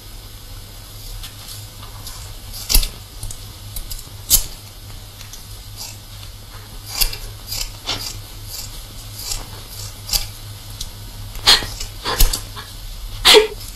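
Scissors snipping through long hair, a few sharp snips spread irregularly apart over a steady low hum. Near the end, a woman's sobs.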